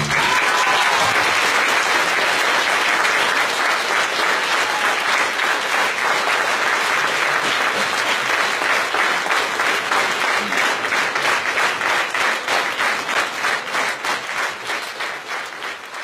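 Audience applauding. The clapping settles into a rhythmic beat in the second half and fades away near the end.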